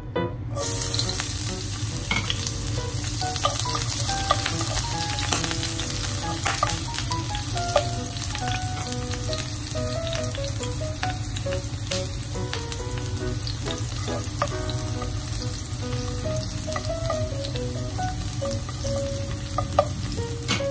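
Minced garlic sizzling in hot oil in a nonstick frying pan: a steady hiss with many small crackles and pops.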